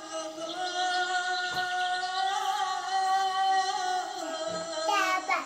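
Music with a singing voice holding long notes that waver slightly in pitch, changing note a few times.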